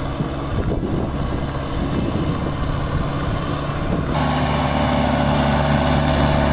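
LKT-81T skidder's diesel engine running, a steady deep drone that grows louder and steps up noticeably about four seconds in.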